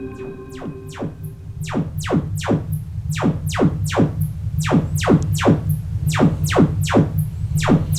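Sonos Beam soundbar playing its Trueplay room-tuning test signal: a brief cluster of steady tones, then rapid falling sweeps from very high to low pitch, about two a second, over a steady low hum. This is the soundbar being calibrated to the room through a phone's microphone.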